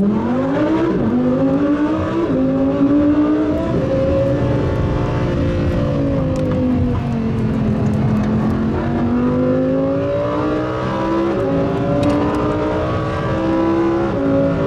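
A car engine accelerating hard through the gears. Its pitch climbs with sudden drops at each upshift, three in the first four seconds, then falls slowly as it eases off, and climbs again with two more shifts near the end.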